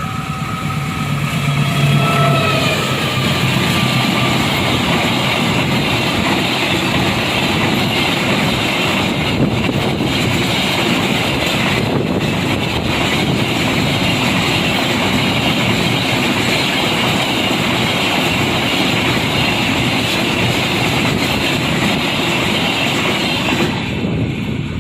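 A train passing close by, with loud, steady rolling noise from its cars on the rails for about twenty seconds, preceded by fading horn-like tones at the start. The noise cuts off suddenly near the end.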